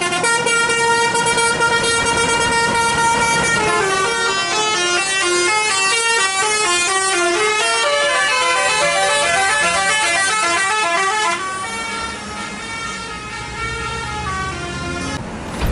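Tour bus's basuri "telolet" multi-tone musical air horn playing loudly: a held chord for a few seconds, then a quick melody of short stepping notes running up and down, turning softer for the last few seconds.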